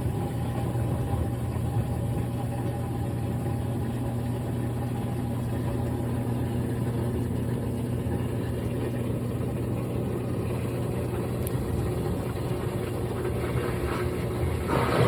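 GE top-load washing machine running mid-cycle with a steady motor hum. Just before the end a louder rushing noise sets in.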